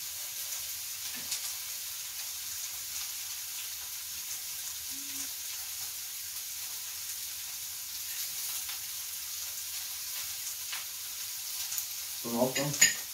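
A steady faint hiss with a few light clicks of cutlery on plates, and a short voice near the end.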